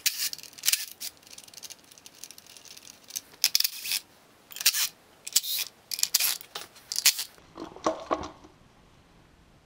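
Cordless drill-driver run in a string of short bursts, backing out the bolts that hold a throttle body to the intake manifold, followed by a few light clinks of metal parts near the end.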